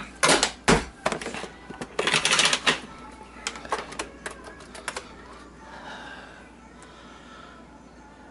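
Clatter and knocks of a white plastic container being handled and set down on a kitchen counter, loudest in the first three seconds, followed by a quick run of lighter clicks.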